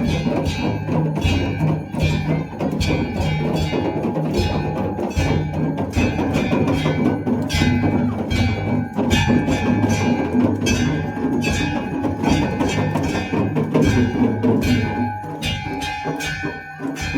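Temple bells clanging together with drum beats in a fast steady rhythm, about three strokes a second, over a ringing wash: the instruments played during aarti worship.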